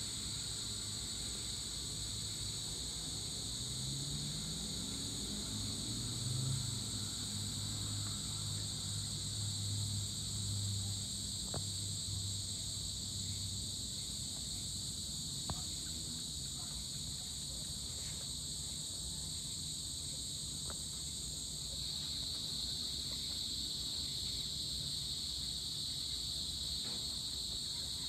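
Steady high-pitched chorus of insects shrilling without a break, swelling slightly about three-quarters of the way through. Beneath it a faint low hum rises in pitch in the first few seconds and then holds steady for several seconds before fading.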